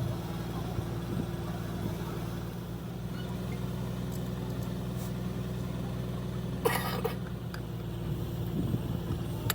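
An engine running steadily with a low, even drone. A short hiss cuts in briefly about seven seconds in.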